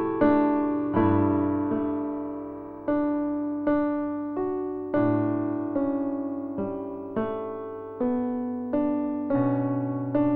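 Slow, gentle piano music: single notes and chords struck about once a second, each left to ring and fade.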